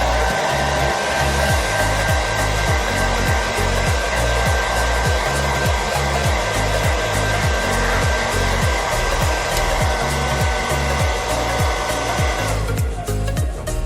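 Handheld hair dryer blowing with a steady whine, switched off near the end. Background music with a steady beat runs underneath.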